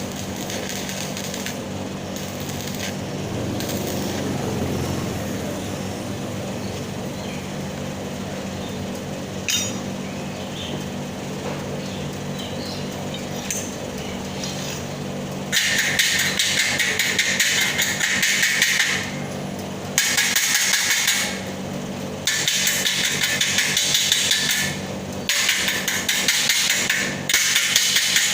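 A steady low hum for the first half. Then stick-welding arcs crackle in several runs of a few seconds each, each stopping briefly before the arc is struck again.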